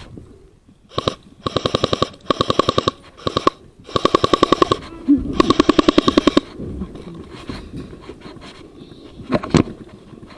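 Airsoft electric guns firing full-auto in about six short bursts, each under a second, the shots coming very fast and evenly. A single sharp crack follows near the end.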